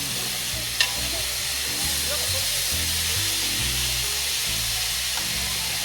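Background music with low, stepping bass notes over a steady hiss of beef brisket and vegetables sizzling on a grill; a single click about a second in.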